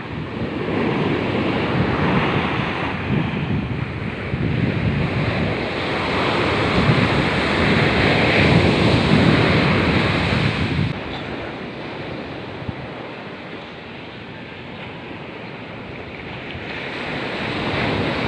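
Ocean surf breaking and washing up a sandy beach, with wind buffeting the microphone. The sound surges in the first half, drops suddenly about eleven seconds in, then builds again near the end.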